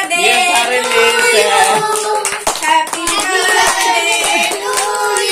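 Voices singing a held, wavering tune, with hands clapping along.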